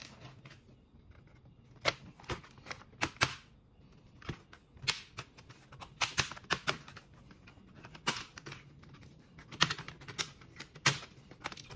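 The plastic snap clips of an ASUS X502C laptop's top case popping loose one after another as the palmrest is pried up with a plastic pry tool: a run of sharp, irregular clicks, some much louder than others.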